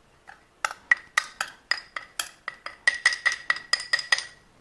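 A metal utensil clinking against a bowl again and again, about four times a second, each clink ringing briefly at the same pitch, as flour is worked in the bowl.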